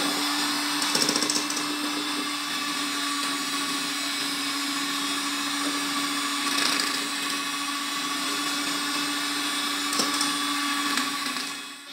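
Electric hand mixer running steadily on its second speed, its beaters whisking the egg and sugar batter in a stainless steel bowl until it turns pale, with a few light knocks.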